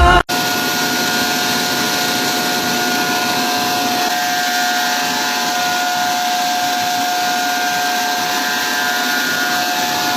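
Corn processing machine running steadily, a constant machine noise with a steady whining tone through it.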